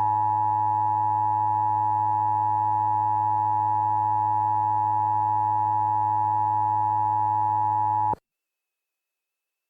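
Emergency Alert System attention signal: a steady two-tone electronic alarm held for about eight seconds with a low hum beneath it, cutting off suddenly.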